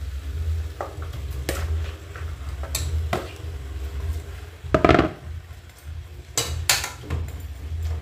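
A metal spoon knocking and scraping against an aluminium cooking pot and a plastic bowl as raw chicken pieces are tipped in and stirred: a series of separate clinks and knocks, the loudest about five seconds in, over a low steady hum.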